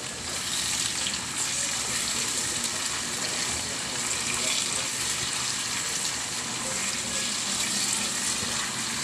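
Sliced chayote and canned sardines in tomato sauce sizzling in a pan as they are stirred with a silicone spatula: a steady frying hiss that gets a little louder about half a second in.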